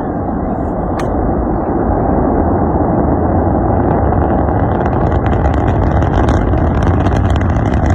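A rocket's loud, steady, rumbling roar that grows a little louder about two seconds in, with a sharp crackling joining about halfway through.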